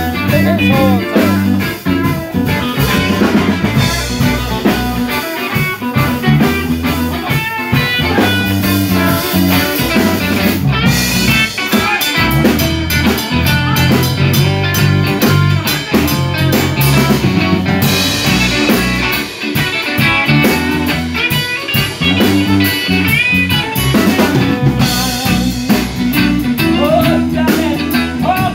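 A live band playing: several electric guitars over a drum kit, in a steady rock groove.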